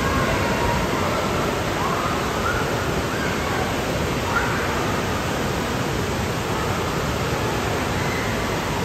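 Steady rushing ambience of an indoor water park: running water noise filling the hall, with faint distant voices calling out now and then over it.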